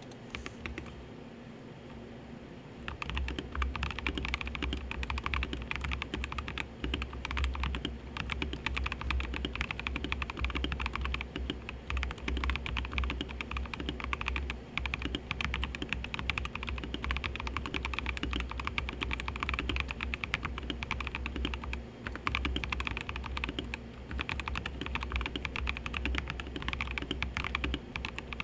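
Typing on a KBD67 Lite mechanical keyboard with lubed Gazzew Boba U4T tactile switches, PBT keycaps, a polycarbonate plate and a foamed ABS plastic case: steady rapid keystrokes starting about three seconds in, with an air conditioner's steady hum underneath.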